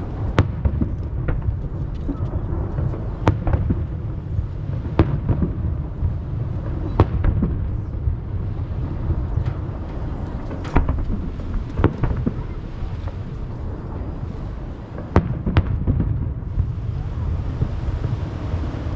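Aerial fireworks bursting: sharp bangs every second or two over a steady deep rumble of booms, echoing off the surrounding hills.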